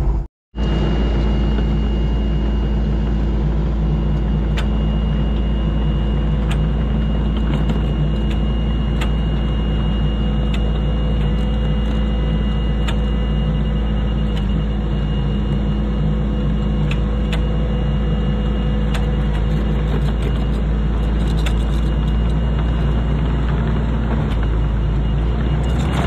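Kubota SVL90 compact track loader's diesel engine running steadily as it pushes a grader box attachment across the dirt pad, with occasional light clicks and a faint high steady whine. The sound drops out for a moment just after the start.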